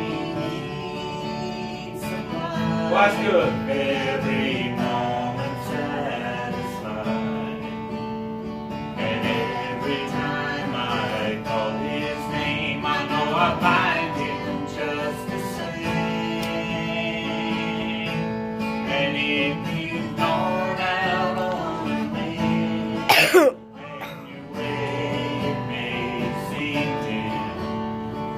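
A man and a woman sing a duet over a strummed acoustic guitar. About three-quarters of the way through there is one short, loud falling squeal, and the music briefly drops away before carrying on.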